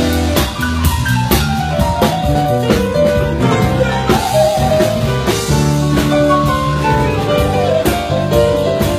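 Band music: a drum kit keeps a steady beat under sustained melodic lines.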